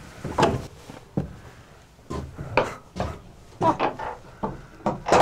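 Footsteps on the wooden stairs and board floor of a bird-watching tower: a series of uneven thuds and knocks, a little under two a second.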